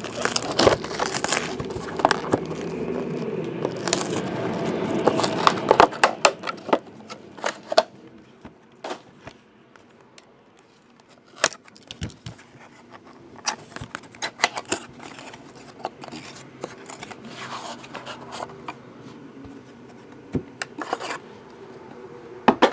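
Plastic shrink wrap being crinkled and torn off a trading-card box, dense crackling for the first six seconds or so. After that come sporadic light clicks and scrapes as the cardboard box is opened and the cards are handled and stacked.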